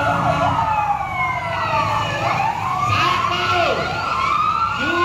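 Fire truck sirens wailing, several rising and falling tones overlapping, over a low steady hum.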